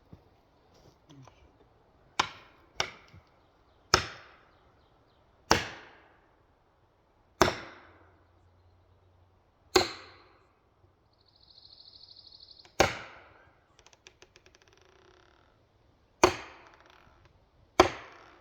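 Nine hard, single strikes spaced one to three seconds apart, each ringing out briefly. This is typical of a felling wedge being driven into the back cut of a big white pine just before it goes over.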